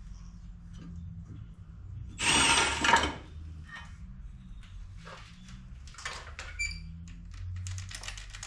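Work noise on a truck body. A clattering burst of about a second comes about two seconds in, followed by a few light metal clinks, one of which rings briefly, over a low steady rumble.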